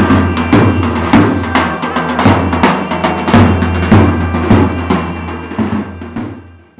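Intro theme music with a steady beat of drum hits, fading out near the end.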